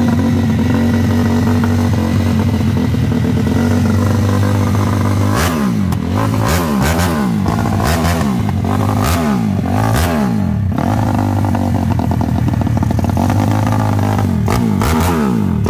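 Race-tuned 190 cc single-cylinder four-stroke engine of a Honda CG motorcycle, running through an aftermarket exhaust. It idles steadily, then is revved up and down in a quick series of blips about five seconds in, settles back to idle, and is revved again near the end.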